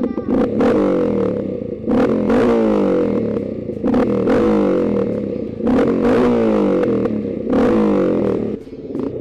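Engine of a snow-plow vehicle revved hard in repeated bursts about every two seconds. Each rev starts suddenly and falls away in pitch.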